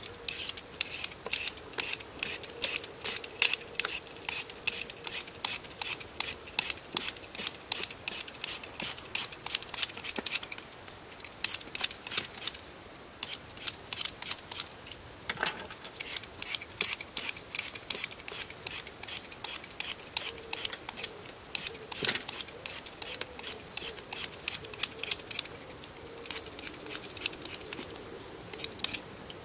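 Vegetable peeler scraping the skin off a raw potato in quick, short strokes, about three a second, with brief pauses as the potato is turned.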